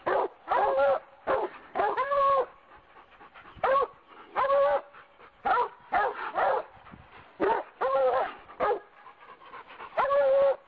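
A dog barking and yelping over and over, short pitched barks in uneven groups of one to three with pauses between.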